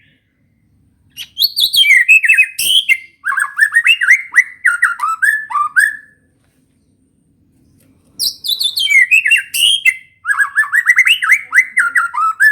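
White-rumped shama singing a canary-style song: two long bursts of rapid chirps and trills, each starting high and falling into a run of quick repeated notes, with a gap of about two seconds between them.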